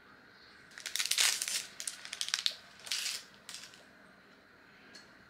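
A clear plastic biscuit wrapper crinkling as it is torn open. The crinkling comes in several bursts over about three seconds, starting about a second in.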